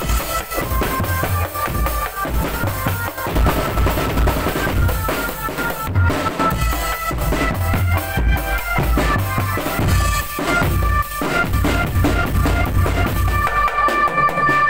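Drum band playing: bass drums keeping a steady beat under rattling snare strokes, with a high melodic line of held notes over the top.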